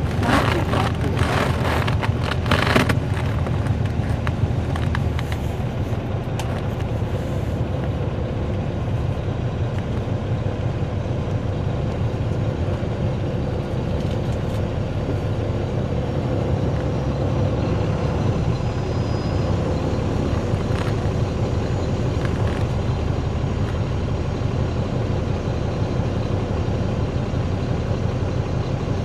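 On board a NABI 416.15 transit bus: its Caterpillar C13 ACERT diesel engine running with a steady low drone, with a few sharp rattles and knocks in the first three seconds.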